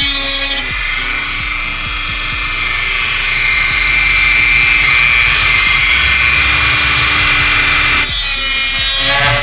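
Dremel rotary tool running at speed as it cuts through a plastic valance: a steady high whine with a gritty cutting noise.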